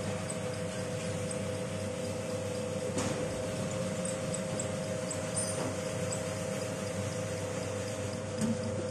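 Peanut skin-peeling machine running steadily: a constant motor hum with a steady whine, and occasional faint light ticks as peanuts are fed into and tumble in its stainless-steel drum.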